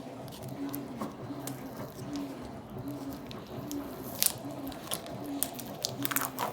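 Plastic wrapper of a cheese stick being picked at and torn open by hand: scattered small crinkles and clicks, a sharper rustle about four seconds in and a longer tearing rustle near the end. Behind it a faint low hum pulses about every three-quarters of a second.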